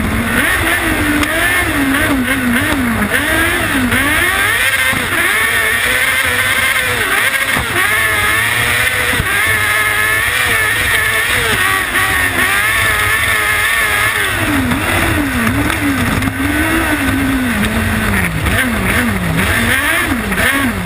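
Kart cross buggy's 600cc Yamaha R6 motorcycle engine revving hard up and down through the corners, held high for several seconds in the middle, over a heavy low rumble.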